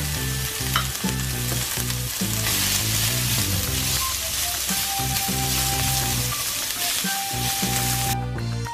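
Sliced raw onions sizzling as they sauté in a hot stainless steel frying pan, stirred with a utensil, over background music. The sizzle drops away just before the end.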